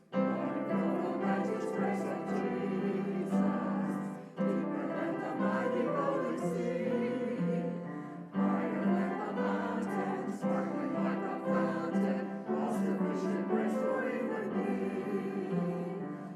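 Group of voices singing a hymn with instrumental accompaniment, in phrases of about four seconds separated by brief breaths.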